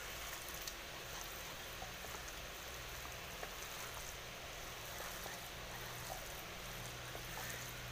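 Faint soft squishing of ground pork filling being kneaded by hand in a bowl, over a steady low hiss and hum.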